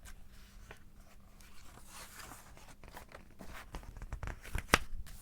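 Paper rustling and handling noises, like the pages of a storybook being handled and turned, with scattered light clicks and one sharper click near the end. A faint steady hum runs underneath.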